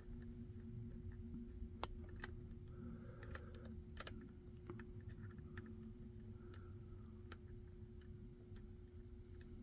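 Faint, irregular small metallic clicks and ticks from a hook pick working the pins of a Yale half Euro lock cylinder held under a tension tool. A low steady hum runs underneath.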